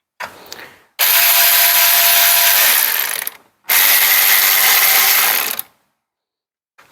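Cordless ratchet (VTEK V116-1, 16.8 V) running in two steady bursts of about two seconds each, driving a bolt in to tighten it, after a brief rattle of handling.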